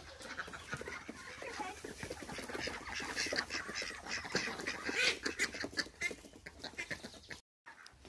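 Ducks quacking, mixed with rustling hay and footsteps on gravel; it all cuts off suddenly near the end.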